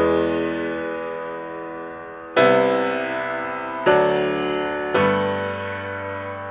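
Background music: piano chords struck four times, each ringing on and slowly fading.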